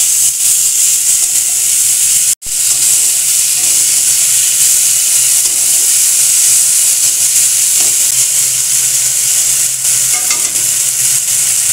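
Ginger and green chilli paste frying with tomatoes and spices in hot oil in a kadai, stirred with a wooden spatula: a steady loud sizzle. It drops out for an instant about two and a half seconds in.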